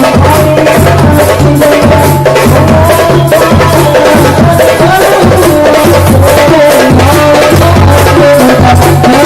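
Hadrah ensemble music: frame drums and a deep bass drum beat a steady, loud rhythm with rattling percussion under a wavering melody line.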